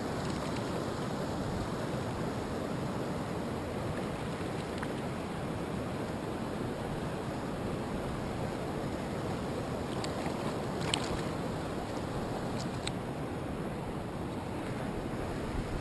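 Steady rush of a mountain stream's flowing water, with a few faint clicks about two-thirds of the way through.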